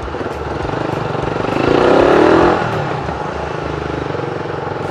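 Suzuki Raider R150's single-cylinder engine running while riding in slow traffic. Its note swells in a brief rev about two seconds in and falls back.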